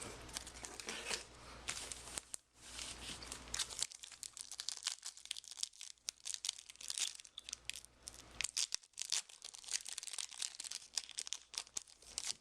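Foil trading-card booster pack wrapper being torn open and crinkled: a dense run of irregular crackles.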